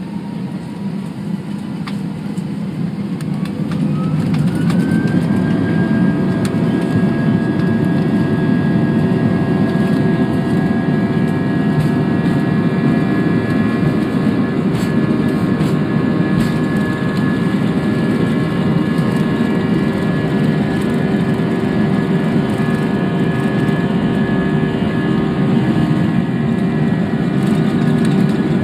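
Airbus A320-232 cabin during the takeoff run: the IAE V2500 turbofan engines spool up to takeoff thrust about four seconds in, their whine rising in pitch as the sound grows louder, then run steadily at full power. A rumble from the wheels rolling down the runway runs underneath.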